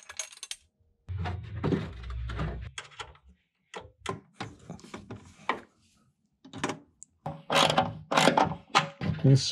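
Metal mounting plate and small fastening hardware being handled and fitted by hand: scattered clicks and knocks, with a dull thump about two seconds in and a quick run of clicks near the end.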